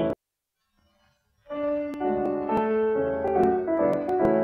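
Playback of an old 78 rpm record cuts off abruptly, leaving about a second of silence, then the record's instrumental accompaniment resumes with faint surface clicks.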